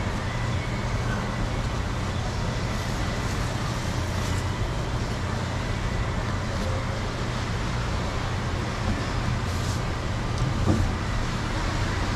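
Steady low rumble of background noise, like traffic or running machinery, holding level throughout with a deep hum underneath.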